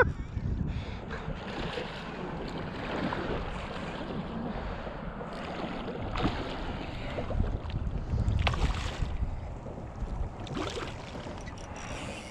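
Wind buffeting the microphone over open shallow water, with a low rumble and a few brief swishes of water about halfway through and again near the end.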